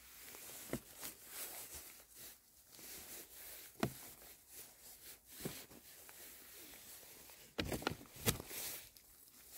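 Rustling on a forest floor, with several sharp cracks scattered through it and a louder cluster of cracks near the end.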